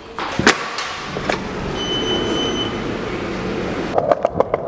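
Skateboard wheels rolling with a steady rumble, with a sharp knock about half a second in. About four seconds in the rolling turns into a rapid, regular clacking of the wheels over rough pavement.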